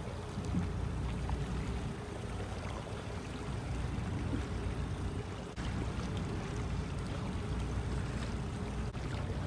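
Steady low rumble of a small boat's motor under way, with water washing against the hull.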